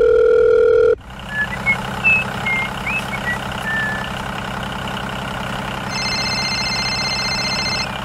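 A telephone ring tone sounds for about the first second and cuts off. Then a tractor engine runs steadily, with a few short chirps over it soon after, and a higher steady tone joins for the last two seconds.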